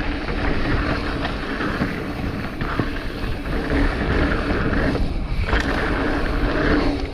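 Mountain bike riding a dirt trail: a steady rush of wind on the microphone mixed with tyres rolling over dirt, with a few scattered clicks and knocks from the bike.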